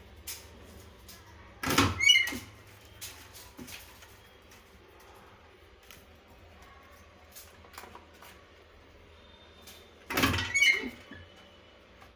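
Two short clattering knocks, each with a brief squeak, one about two seconds in and one near the end, over a faint steady hum and scattered small clicks.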